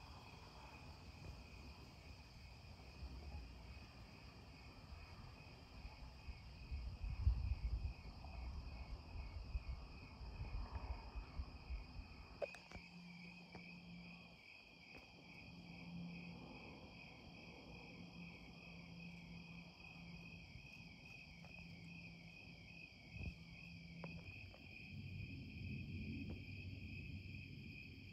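Crickets chirping in a steady, rapid pulse. Low rumbling on the microphone comes and goes between about six and twelve seconds in, and is the loudest part.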